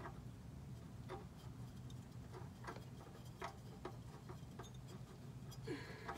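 Faint, irregular clicks and light taps of a new oil filter being handled and turned by hand against its mount, as it fails to thread on properly. A low steady hum runs underneath.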